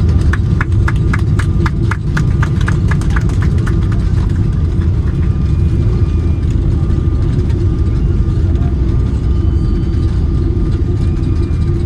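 Cabin noise of a Boeing 777-300ER rolling out on the runway after touchdown: a loud, steady rumble of the wheels on the runway and the GE90 engines, heard through the fuselage. A quick run of short clicks comes in the first few seconds.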